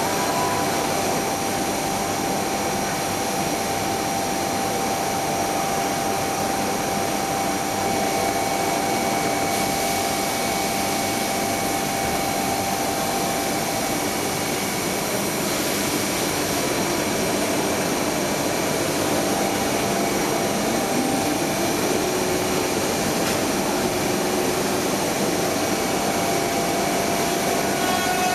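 Maka PE70 CNC router running: a steady rushing machine noise with a held high whine, its pitch shifting slightly a little past the middle.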